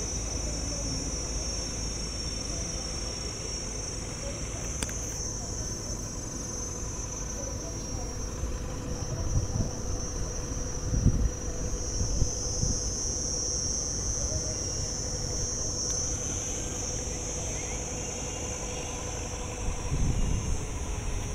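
Steady high-pitched chirring of insects, with a faint steady hum under it. Low rumbles swell up around the middle and again near the end.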